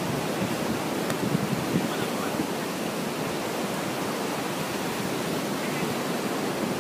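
Steady rushing noise of surf and wind.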